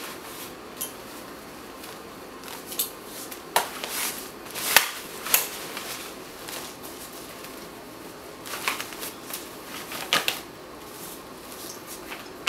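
Clicks, knocks and rattles from the frame joints of an Arm's Reach co-sleeper as it is pushed and folded, in scattered single clacks over a low room hum.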